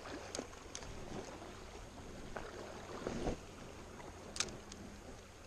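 Shallow river water running around a wading angler, with light clicks from handling a spinning rod and reel and one sharp click about four and a half seconds in. A faint steady hum starts just after that click.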